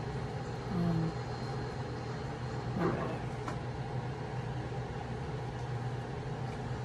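A steady low hum, with a brief short sound about a second in and a light knock near three seconds.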